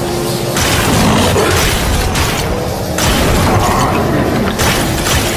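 Animated-series sound effects: a loud, dense wash of booms and mechanical noise that shifts abruptly every second or two.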